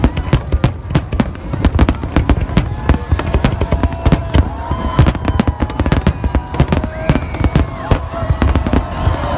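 Fireworks display: aerial shells bursting in rapid, overlapping bangs, several a second, over a continuous low rumble.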